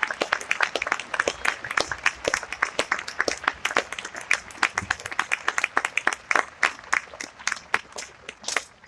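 Large audience applauding with dense clapping that thins out to scattered claps near the end.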